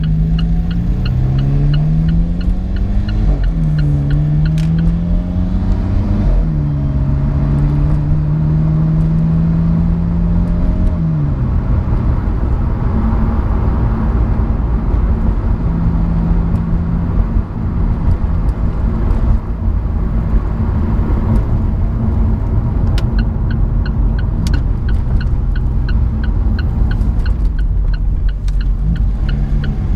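Alfa Romeo 4C's turbocharged four-cylinder engine pulling from the driver's seat, its pitch rising and then dropping sharply at each upshift as the dual-clutch gearbox, running in automatic on its new TCU, works up through the gears. After that it settles into steady running with road noise. An even ticking is heard near the start and again near the end.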